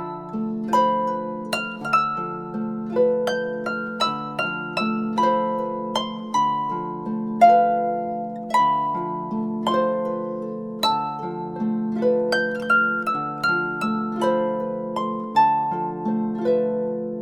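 A built-in Cubot X6 phone ringtone: a continuous melody of plucked, quickly decaying notes, about two a second, over a steady repeating lower accompaniment.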